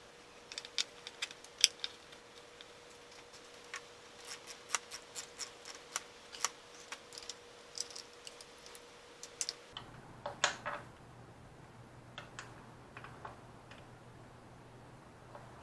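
Irregular sharp clicks and light metallic taps of hand tools at work on a motorcycle's sprocket and chain parts, many through the first ten seconds, then a few more shortly after.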